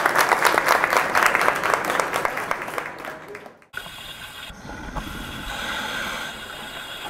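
Audience applauding, fading over about three and a half seconds. It cuts off abruptly and gives way to a quieter, steady hum.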